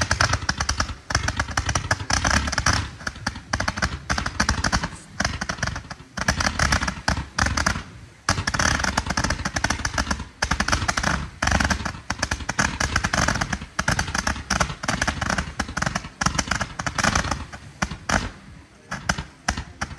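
XC3007 Roman candle bundle (300 shots, 0.5-inch bore) firing a rapid stream of shots, many pops a second with only short breaks. The shots thin out near the end.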